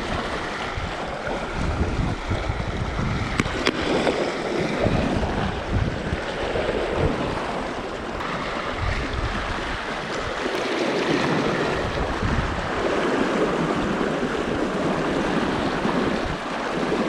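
Fast-flowing river water rushing steadily, with wind gusting against the microphone.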